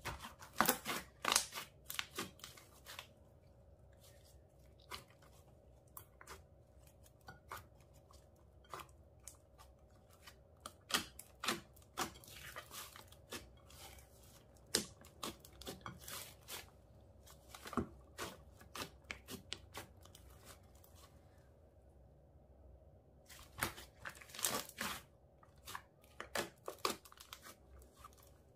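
Hands stretching, squeezing and folding a large batch of clear slime mixed with makeup and glitter, making irregular sticky crackles and pops. The crackles come in quick clusters near the start and again near the end, with scattered single pops between.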